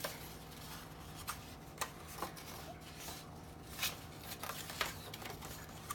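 Paper petals being handled and curled by hand: faint rustling and crinkling of paper with a few light ticks.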